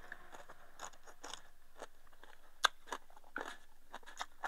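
A person eating: quiet chewing and crunching of food, with a few scattered sharp clicks of chopsticks against a rice bowl and a clay pot.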